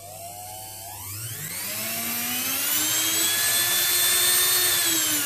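Small brushed universal motor of a hand mixer, with its cooling fan, running bare on a variac: its whine rises steeply in pitch about a second in as it speeds up, holds at high speed over a hiss, and begins to fall near the end as it slows.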